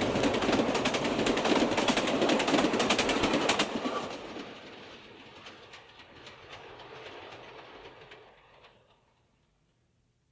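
New York Central freight train passing close, its wheels clicking rhythmically over the rail joints. A few seconds in, the sound drops off suddenly, and the clicking trails away into silence as the train recedes.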